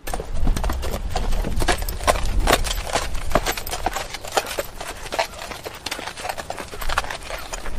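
Hooves of several walking horses clopping on stony, gravelly ground: many irregular, overlapping steps, over a steady low rumble.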